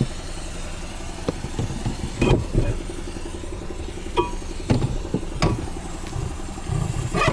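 A steady engine hum, with a series of sharp clunks and knocks as a spare tire is worked loose and handled in a car's trunk.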